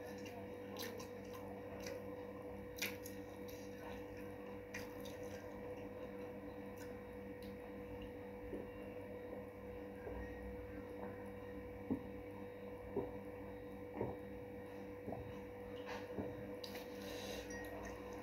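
Faint small mouth and eating sounds: scattered soft clicks and smacks, and sips of water from a glass, over a steady electrical hum.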